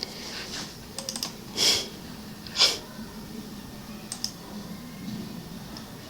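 Computer keyboard keystrokes: a quick cluster of clicks about a second in and a few scattered clicks later. Two short, loud breath noises close to the microphone, about a second apart, are the loudest sounds.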